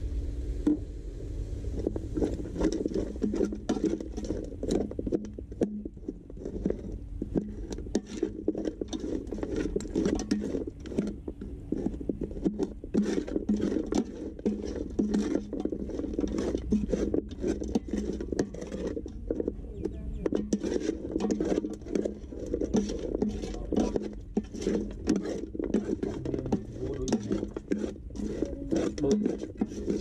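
Metal spoon stirring chopped meat in an aluminium cooking pot, with a steady run of irregular scrapes and clinks against the pot.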